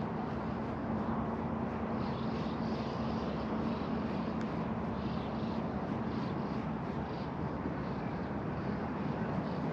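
Steady outdoor background noise with a constant low hum from a distant engine.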